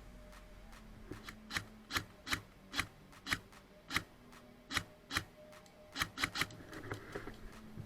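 A series of about a dozen sharp clicks at an uneven pace, roughly two a second, over a faint steady hum.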